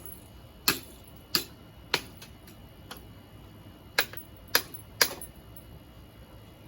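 Six sharp knocks of hard objects striking, in two quick sets of three.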